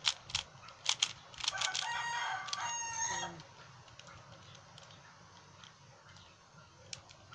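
A rooster crows once, starting about a second and a half in and lasting about two seconds, over the sharp clicks of a 3x3 Rubik's cube's layers being turned.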